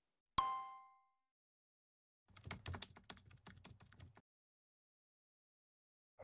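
Editing sound effects: a single bright ding about half a second in, then about two seconds of rapid computer-keyboard typing clicks. Dead silence before and after.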